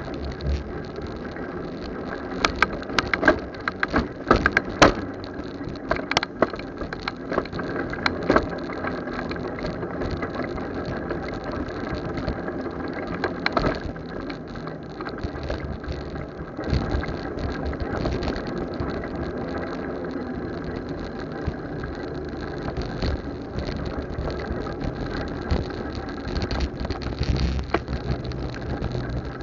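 Motorcycle on the move heard through a cheap bike-mounted camera: steady road and engine noise mixed with crackling rattles from the camera and its mount, thickest in the first several seconds.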